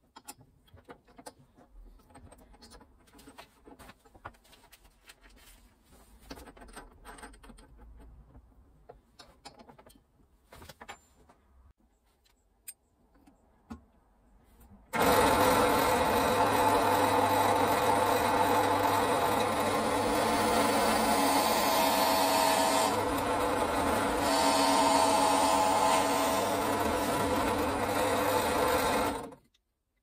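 A bench drill press running and boring into a small wooden pen blank held in locking pliers. The motor starts about halfway through and runs steadily before stopping shortly before the end. Before it starts, there are faint clicks and knocks of handling the drill chuck and the work.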